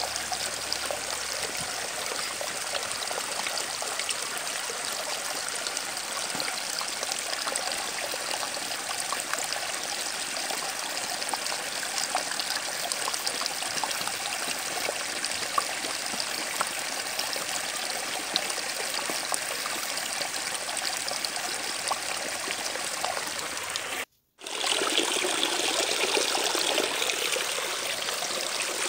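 Steady rushing water sound, like a running stream. It cuts out abruptly for a moment about 24 seconds in, then resumes a little brighter.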